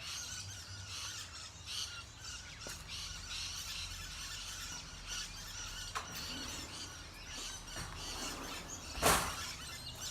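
A spoon stirring a thick cornstarch-and-glue paste fast in a bowl, scraping and squeaking steadily, with a sharp knock about nine seconds in.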